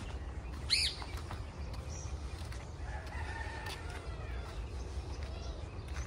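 Birds calling outdoors: a short, sharp, high call about a second in, then a fainter, longer call around the middle, over a steady low rumble.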